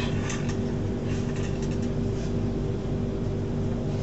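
Steady hum and rumble of a passenger train heard from inside the carriage, with a few faint clicks in the first two seconds.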